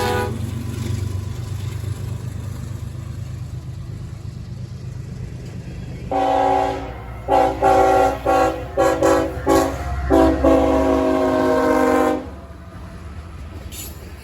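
Freight locomotive's multi-chime air horn sounding a salute: a long blast about six seconds in, then a rapid series of about eight short toots and a final longer blast, over the steady low rumble of the passing diesel locomotive and train.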